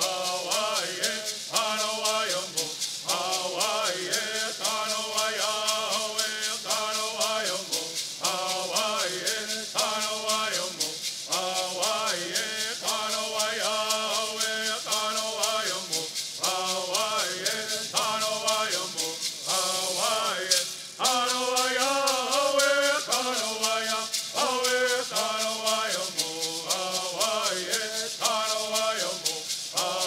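A group of men singing a Southern California Native American bird song in unison, shaking gourd rattles in a steady, rapid beat. About two-thirds of the way through the singing breaks off briefly and then starts again.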